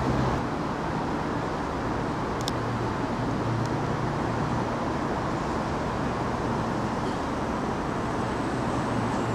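CrossCountry Voyager diesel multiple unit drawing slowly into a station platform, its underfloor diesel engines running with a steady low hum.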